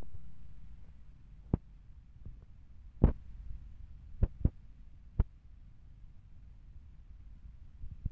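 A low steady rumble with a handful of sharp clicks or knocks scattered through it, the loudest about three seconds in and a close pair a little after four seconds.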